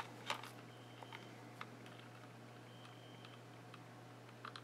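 A few light plastic clicks as a handheld portable electronic hanging scale is handled, and two short, faint, high beeps, about a second in and about three seconds in, as the newly powered scale switches on. A faint steady low hum sits underneath.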